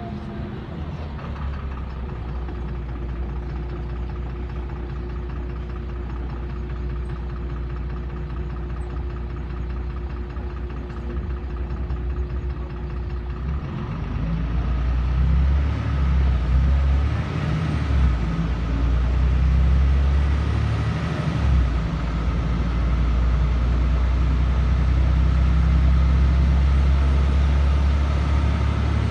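Inside a LiAZ 5292 city bus: the engine runs steadily under a faint steady whine, then about 14 seconds in the low engine rumble grows louder and heavier as the bus accelerates, dipping briefly a few times.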